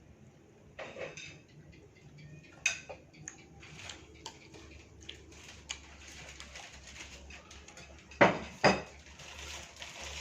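Cutlery clinking and scraping against a plate during a meal, in scattered light clicks, with two louder knocks about eight seconds in.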